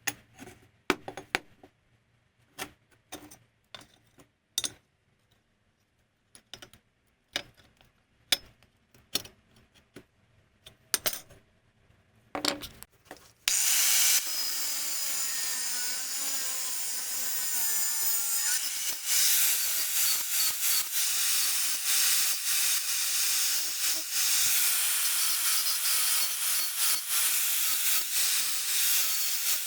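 Scattered sharp knocks and clicks of metal parts being handled. About thirteen seconds in, a loud, steady hissing, rasping sound of metal being worked starts and runs on.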